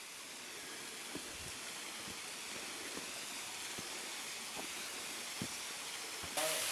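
Steady rush of falling water from a waterfall, growing gradually louder and then jumping up sharply near the end. A few faint taps sound under it.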